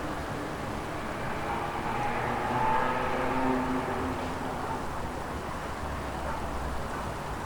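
Wind blowing through trees, a steady rushing, with a louder swell carrying a faint hum about two to four seconds in.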